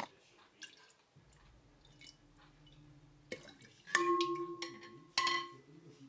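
A ladle knocking and clinking against a round glass jug of fruit compote while stirring it, with a few light taps and two louder strikes a little past the middle that ring on briefly.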